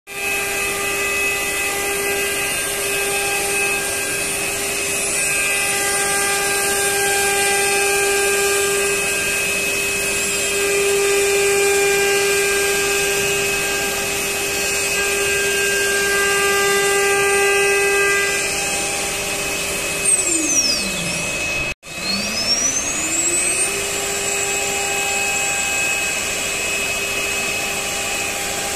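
Multi-spindle CNC router's spindle whining at a steady high pitch while the bit routes a groove in a wood-based board. About two-thirds of the way through the whine falls away as a spindle spins down, the sound cuts out for an instant, and the pitch climbs back as a spindle spins up to speed again, typical of the machine changing over from one spindle to another.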